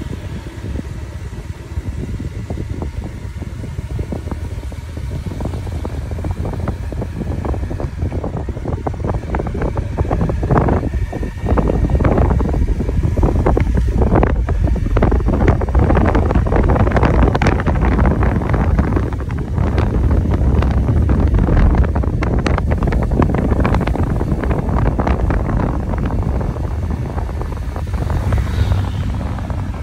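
Motorcycle riding along a road, its engine rumbling under crackling wind buffeting on the microphone; it grows noticeably louder about twelve seconds in.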